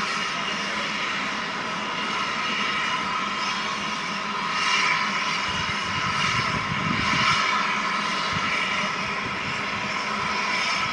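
Steam locomotive LNER A1 60163 Tornado making a steady roar of steam with several held tones, with some low thumps around the middle.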